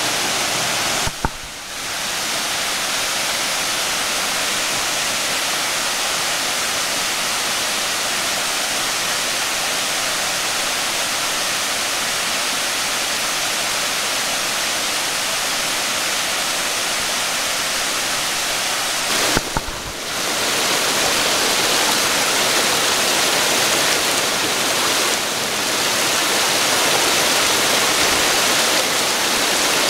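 Cascading creek waterfall: a steady, loud rush of water, broken twice by a short click and brief dip, about a second in and again past the middle.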